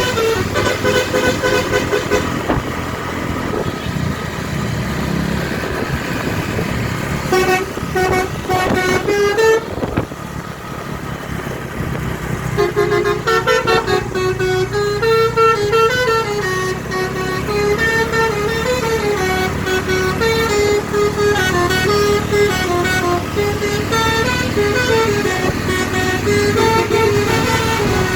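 Tour bus's musical telolet horn playing a tune of stepped notes: a short run at the start, another about eight seconds in, then a long unbroken melody from about thirteen seconds to the end. Bus engine and road noise run underneath.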